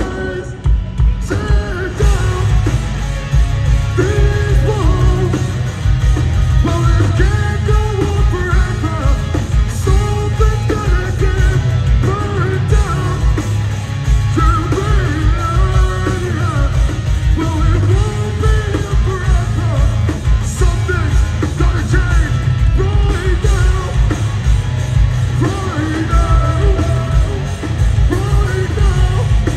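A live metal band playing at full volume, heard from within the crowd: heavy drums, bass and guitars under the lead vocals, dropping back briefly about a second in before the full band comes back in.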